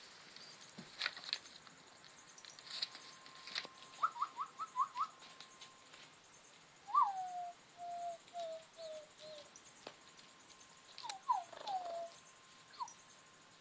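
Baby raccoon chirping and twittering: a quick run of five rising chirps, then a longer call that drops in pitch followed by a string of shorter falling notes, and a few more falling chirps near the end. Light clicks and taps come in between.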